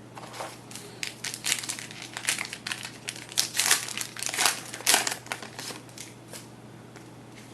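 Crinkling and crackling of a trading-card pack's wrapper being torn open and handled, a dense run of crackles that settles about a second before the end.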